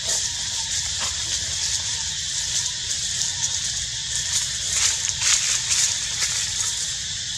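Steady outdoor background hiss, with a few brief crackles or rustles about five seconds in.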